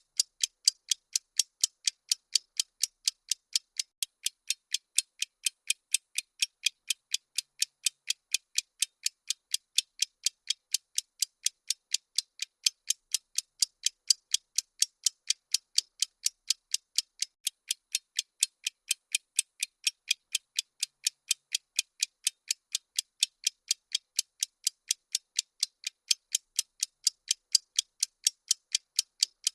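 Countdown-timer ticking sound effect: sharp, thin, high ticks repeating evenly at a few per second, with no change in pace.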